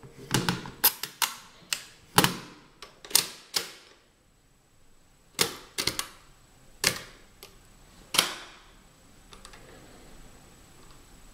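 TIM-Unitas stepped-drum mechanical calculator clacking as it is worked by hand: a quick run of about ten sharp clacks in the first four seconds, then five more spaced out over the next few seconds, and only faint ticks near the end.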